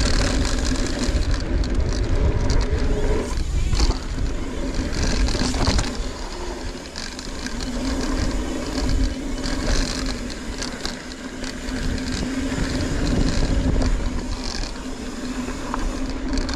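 Mountain bike riding a dirt trail, heard from a camera on the bike or rider: wind rushing over the microphone, tyres on dirt and the bike rattling, with a steady hum through much of it and a couple of clunks about four and six seconds in.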